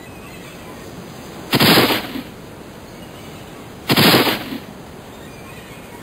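Two pistol shots, about two and a half seconds apart, each a short loud crack with a brief tail, over a steady background hiss.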